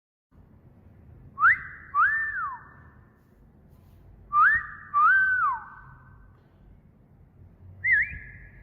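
A wolf whistle played twice: a sharp rising note, then a longer note that glides down. Each whistle echoes briefly afterwards. A shorter, wavering whistle starts near the end.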